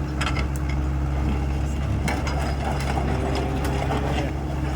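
SANY SY75C Pro excavator's diesel engine running steadily and smoothly, with scattered clicks and clanks from its moving parts.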